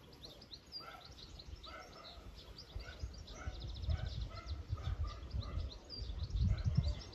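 Small birds chirping and calling in short repeated phrases, with a brief rapid trill partway through. Gusty wind rumbles on the microphone, strongest in the second half.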